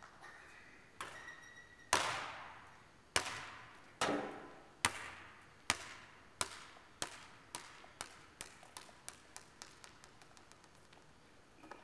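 A basketball bouncing on a gym floor after a shot, about a dozen bounces that come faster and fainter until the ball settles. Each bounce echoes around the large hall.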